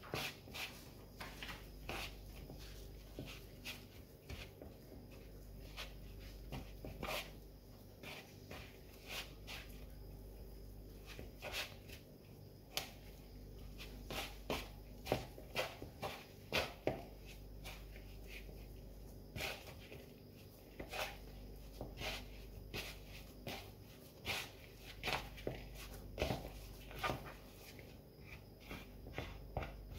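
Hands kneading shortcrust pastry dough in a plastic bowl: irregular soft taps and knocks as the dough is pressed and the bowl shifts on the counter.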